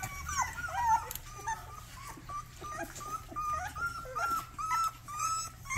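Very young Rottweiler puppy whining in many short, high-pitched cries, coming quicker near the end; the owner takes the crying as the pup wanting to be with its mother.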